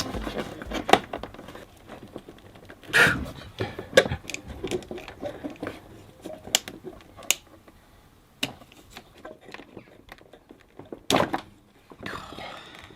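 Scattered clicks and knocks of plastic wiring connectors and clips being worked loose around a car's radiator fan, with a few louder knocks along the way.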